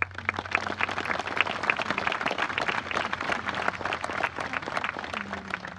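Large crowd applauding. The clapping begins suddenly and thins out near the end.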